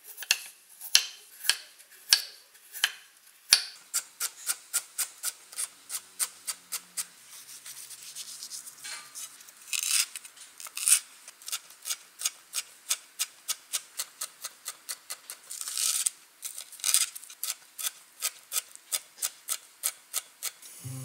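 Chef's knife cutting on a wooden cutting board: a steady rhythm of sharp knocks, a few per second and slower at first, as it slices a carrot and then finely chops green and red chilies.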